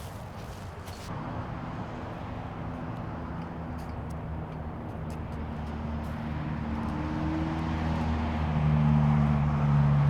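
A motor vehicle's engine approaching: a low rumble with a steady hum that grows steadily louder, loudest over the last couple of seconds.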